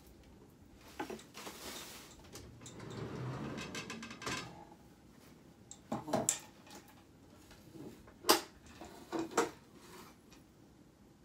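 Household items being handled while tidying: rustling in the first few seconds, then several sharp knocks and clinks as things are moved and set down, the loudest knock about eight seconds in.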